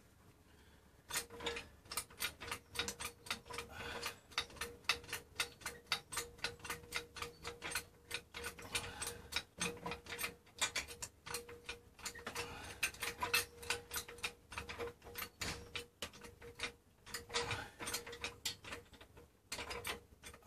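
Hydraulic trolley jack being pumped by its long handle to push up the front radius arm: a quick run of clicks and clunks from the pump mechanism, starting about a second in and stopping shortly before the end.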